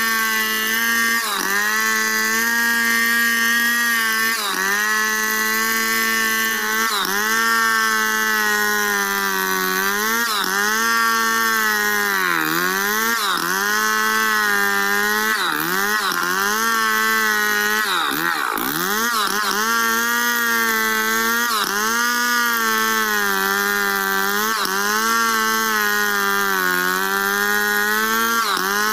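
Stihl 070 two-stroke chainsaw running at full throttle, ripping lengthwise through a squared log. Its engine pitch dips briefly and recovers every second or two under the load of the cut, with deeper dips about 12 and 18 seconds in.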